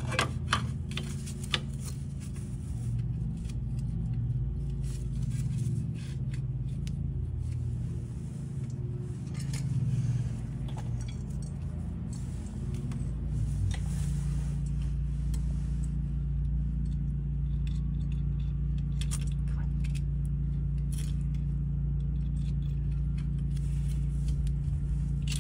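Scattered light metallic clicks and clinks of a parking brake shoe and its springs and hardware being handled and fitted against the rear axle backing plate. Under them runs a steady low hum.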